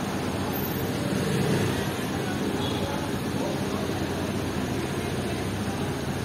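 City street ambience: a steady hum of traffic, with people talking in the background.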